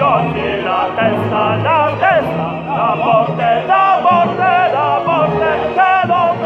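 Operatic singing with wide vibrato over an accompaniment of sustained low notes.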